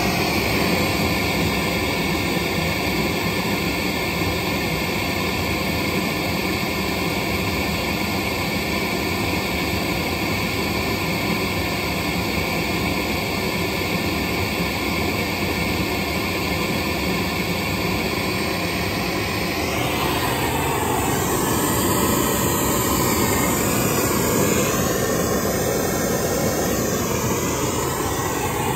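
Pink noise test signal played steadily through a small Sony three-way bookshelf speaker, set to about 85 dB at 1 m for a level measurement. From about two-thirds of the way in, its tone takes on a shifting, swirling colour.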